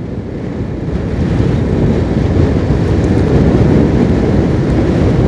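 Motorcycle riding along a road: engine running under heavy wind buffeting on the microphone, a dense low rumble that swells over the first couple of seconds and then holds steady.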